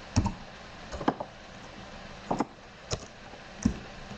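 Scattered keystrokes on a computer keyboard: about five separate clicks, roughly a second apart.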